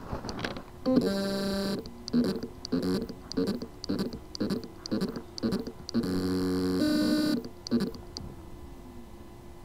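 Samsung Spinpoint HM321HX laptop hard drive with loose spindle-motor contacts trying to spin up. A buzzing tone about a second in gives way to a run of short pulses, about two and a half a second. A second buzz comes at about six seconds, followed by a couple more pulses. The motor spins but cannot reach its full speed.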